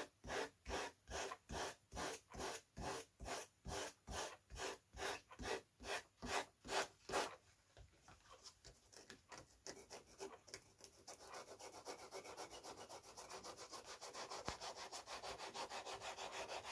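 Hand sanding bar rubbed back and forth along the edge of a Depron foam sheet, bevelling it to 45 degrees. The strokes are even, about two and a half a second, for the first seven seconds, then turn into quieter, shorter, quicker rubbing.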